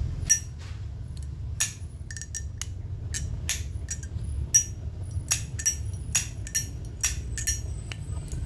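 Zippo Armor lighter's thick case lid being flicked open and snapped shut over and over: a series of sharp metallic clicks with a brief ring, a couple a second. The thick Armor case keeps the click moderate rather than loud.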